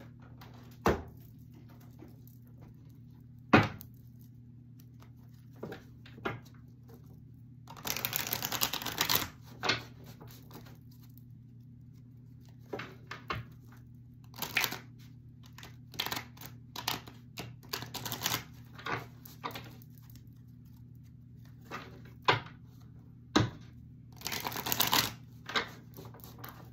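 Tarot cards being handled on a table: two short bursts of rapid card-flicking shuffles, scattered light taps and clicks as cards are set down and moved, and a few sharper knocks, the loudest a few seconds in. A faint steady low hum runs underneath.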